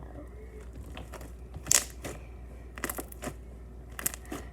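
Slime being squeezed and kneaded in the hands, giving a series of sharp, irregular clicks and pops.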